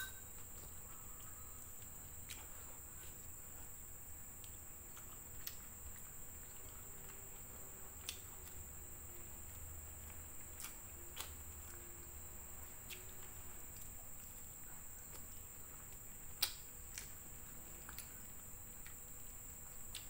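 Faint close-miked eating sounds: scattered wet mouth clicks and smacks as food is chewed, the sharpest about three-quarters of the way through, over a steady thin high-pitched whine.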